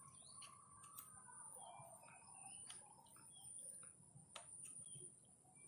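Faint birds chirping in short scattered calls, with a few sharp clicks and a steady high hiss underneath.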